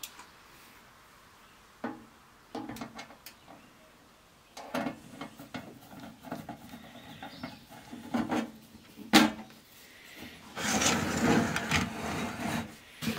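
Handling of a metal-cased Technics CD changer on a workbench: a screwdriver tightens the cabinet screws with scattered clicks and short scrapes, and a sharp knock comes about nine seconds in. Near the end the unit is turned round on the bench top, making a longer scraping rub.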